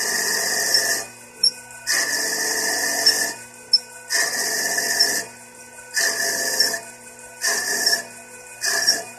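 CNC lathe tool cutting a spinning wooden blank: about six scraping, rasping cutting passes, each shorter than the one before, with quieter gaps between them. The lathe's steady hum runs underneath.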